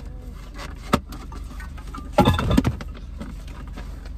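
Steady low hum inside a car's cabin, with a sharp knock about a second in from a drink tumbler being handled and a short loud burst about two seconds in.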